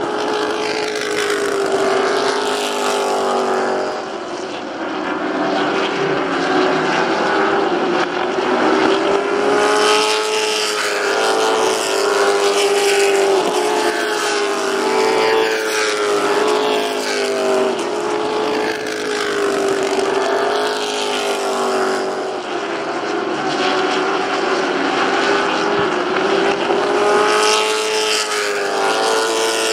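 Stock-car racing engines running hard around a short oval, their pitch rising and falling over and over as the cars come past and drive away down the straights and through the turns.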